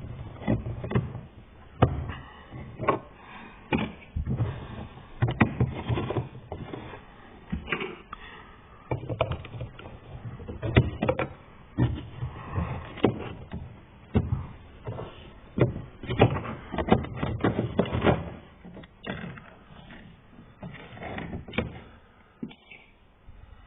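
Irregular plastic clicks and knocks of hands working the power window switch and its door trim in an Opel Corsa: prying, unclipping and fitting the switch. The clicks come several a second in busy stretches, with quieter gaps in between.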